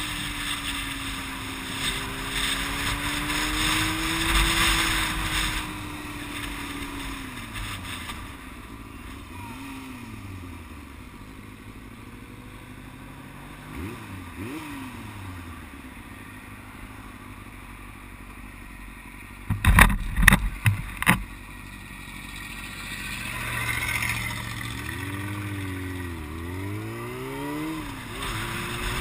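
Yamaha R6's inline-four through an aftermarket Yoshimura exhaust, heard from the rider's seat. Wind rushes over the microphone while the engine note falls as the bike slows, then the engine idles low with short throttle blips that rise and fall in pitch. A cluster of sharp knocks comes about two-thirds of the way through.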